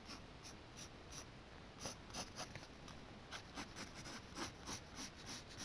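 Pencil scratching on paper in a run of short, quick, faint strokes as curved lines are sketched.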